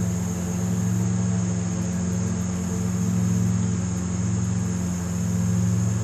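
Steady low engine drone from distant motor traffic, swelling and fading slowly, with a constant high chirring of insects over it.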